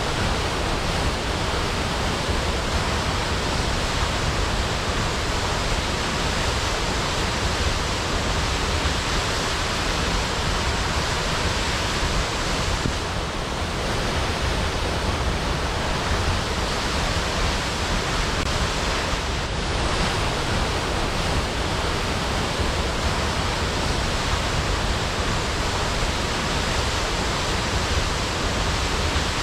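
Waterfall: the steady, even noise of falling water.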